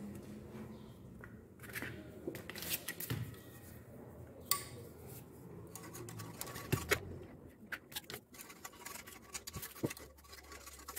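A knife blade scraping and clicking against the inside of a metal engine air pipe, working loose thick oily carbon deposits. It comes as scattered short scrapes and taps.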